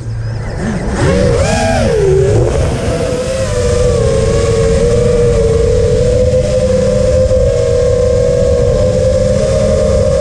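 FPV racing quadcopter's motors and propellers whining. The pitch swoops up and down with throttle in the first two or three seconds, then holds a nearly steady high whine.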